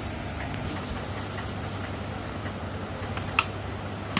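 Quiet steady low hum with two short sharp clicks, one a little past three seconds in and one at the end: handling noise as a screwdriver is brought to the sewing machine.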